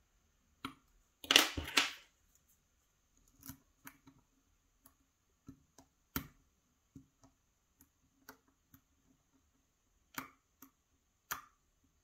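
Hook pick in a pin-tumbler lock under light tension, making a louder scrape about a second and a half in, then scattered small, sharp metallic clicks. The clicks are the pick slipping off the pins, not pins setting.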